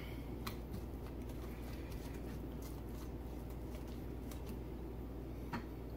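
A silicone pastry brush spreading oil over bread dough in a glass bowl: a few faint, soft clicks and dabs over a low steady hum.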